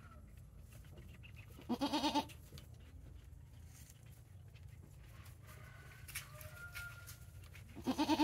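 Goat bleating: two short, wavering bleats, one about two seconds in and another near the end.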